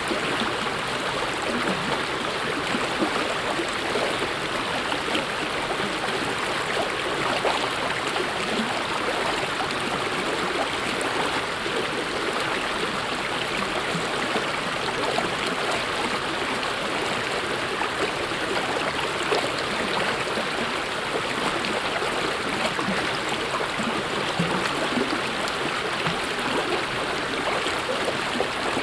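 Mountain stream flowing steadily: a constant rush of running water with small splashes flecked through it.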